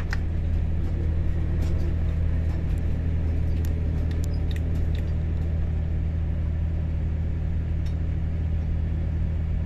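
Diesel engine of an SSP 110 SW ballast regulator running steadily under way, a deep even drone heard from the cab, with a few light clicks from the running gear in the first half.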